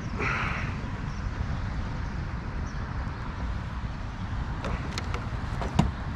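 Wind rumbling on an outdoor microphone, with a few sharp clicks or knocks near the end, the last one the loudest.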